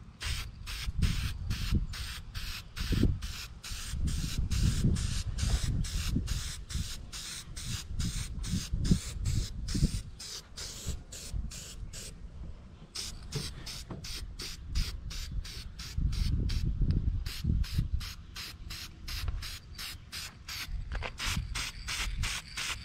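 Aerosol spray paint can hissing in quick pulses as paint is sprayed onto a car's interior panel, stopping briefly about halfway through and again near the end, over a low rumble.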